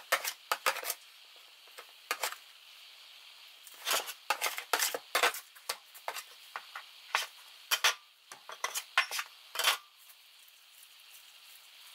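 Metal bench scraper knocking and scraping against a plastic dough tray and the countertop as it cuts dough: a run of sharp clicks and scrapes in clusters, fewer between about one and four seconds in.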